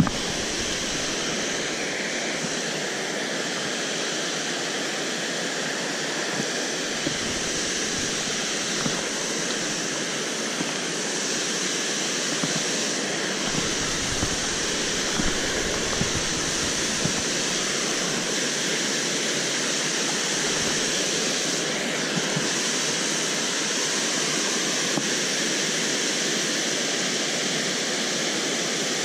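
Steady rush of water spilling over a low-head dam, with a few faint clicks.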